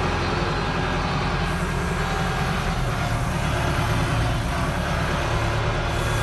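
YTO 904 tractor's diesel engine running steadily under way, heard from inside the cab.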